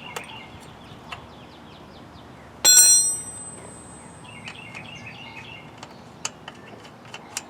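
A single sharp metallic clink about a third of the way in, ringing briefly before it fades, as metal tools and bike hardware knock together during axle-nut work; a few small tool clicks near the end, over faint bird chirps.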